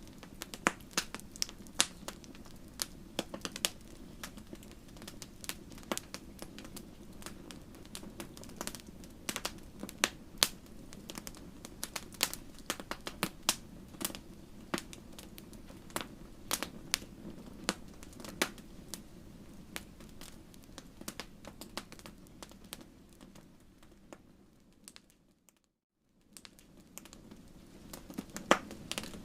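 Bonfire crackling: irregular sharp pops and snaps of burning wood over a low steady rumble. Near the end the sound fades and drops out for about a second, then comes back.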